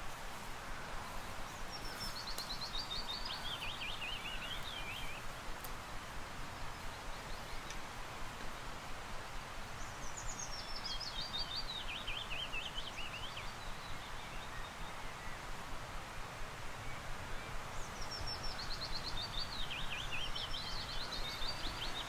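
Willow warbler singing three times, each song a run of sweet notes falling in pitch over about three seconds, over a steady background hiss.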